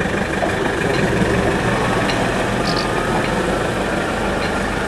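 A motor vehicle's engine running steadily close by, a constant low rumble.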